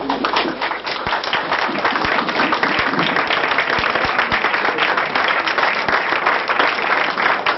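Audience applauding, a dense clapping that starts at once and holds steady.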